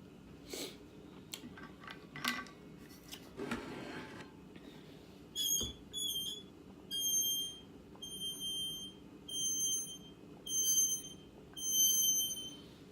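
A drinking straw in a cup of ice squeaking as it is sucked on: a run of about eight short, high whistle-like tones in the second half. A few soft clicks and rustles come before it. The ice pinching the straw gives the squeak.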